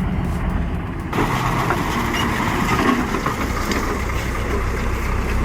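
Heavy vehicle engine running. About a second in, the sound switches abruptly to a noisier engine with more hiss.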